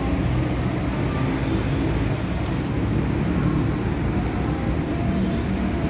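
Steady rumble of road traffic from an elevated double-deck toll road.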